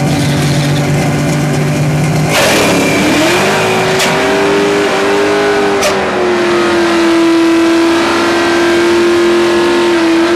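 1997 Ford Mustang SVT Cobra's 4.6-litre DOHC V8 launching at a drag strip: a steady low engine note, then about two seconds in a sudden hard launch. The revs climb through the gears with two sharp cracks along the way, and the engine settles into a long, steady high note at full throttle as the car runs away down the track.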